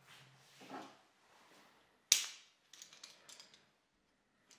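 Steel F-style bar clamp being handled: one sharp metallic clack about two seconds in, followed by a quick run of small rattling clicks as the sliding jaw shifts on the bar.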